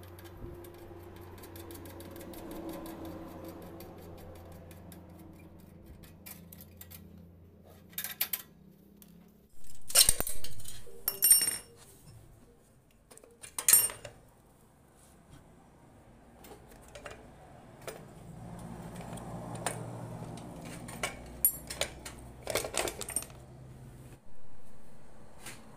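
Metal clinking and clattering of spanners and loose parts on a motorcycle's rear axle and brake linkage as the rear wheel is taken off, in scattered bursts, loudest around the middle. A low steady hum runs underneath.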